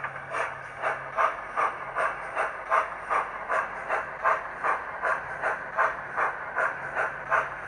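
Sound-fitted model BR Standard Class 9F steam locomotive chuffing steadily, about two and a half chuffs a second, as it hauls a long train of open wagons.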